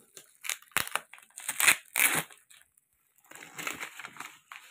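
Bubble wrap and plastic parcel wrapping crinkling and crackling as it is handled and cut open with scissors: a run of sharp crackles over the first two seconds, a brief pause, then softer crinkling.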